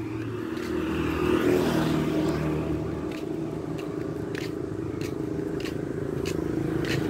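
A motor vehicle engine running steadily, getting louder toward the end as it comes closer, with a few light clicks over it.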